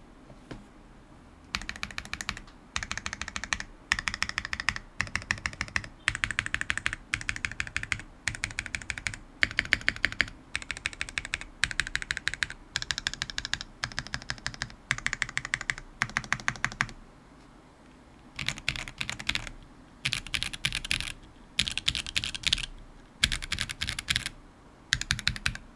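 Mechanical keyboard typing: a Smith+Rune Iron165 with a forged carbon plate, lubed Zaku switches and GMK keycaps, typed in quick bursts of rapid key clacks separated by short pauses, with a longer pause about two-thirds of the way through.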